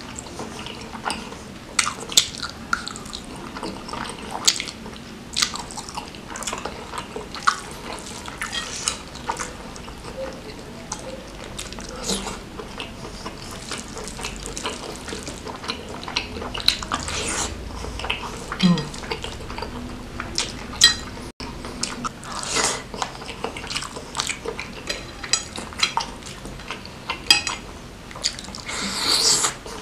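Close-up eating sounds: wet chewing and lip smacks on chicken satay coated in curry sauce, a dense run of irregular small clicks and squelches, with rice and sauce squished by hand in the bowl.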